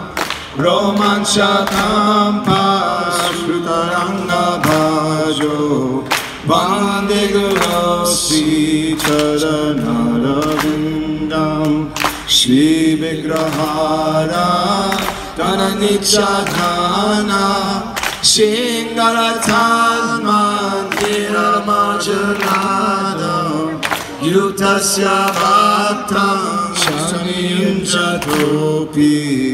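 Hardcore band playing live: a male lead singer sings over electric guitar, bass guitar and drums.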